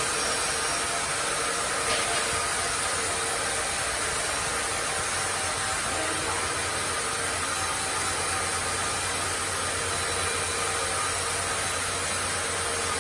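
Carriage band sawmill cutting a log: the saw and carriage machinery run in a steady, even noise with a low hum underneath. There is one brief clack about two seconds in.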